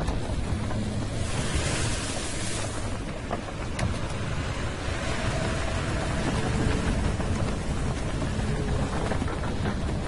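Ocean surf and wind: a steady deep rumbling wash, with a swell of hiss a little over a second in and a single sharp click near four seconds.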